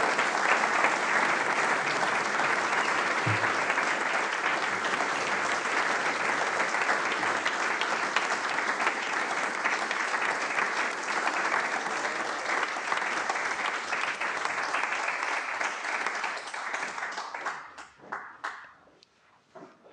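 Audience applauding, dense and steady, then thinning out about seventeen seconds in to a few last scattered claps.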